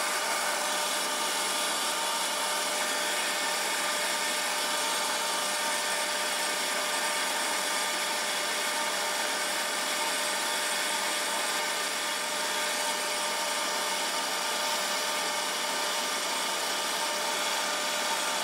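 Metal lathe running at 250 RPM under power feed, its tool taking a light cut in aluminum: a steady machine whine with several held tones over an even cutting hiss. The motor runs with very little strain.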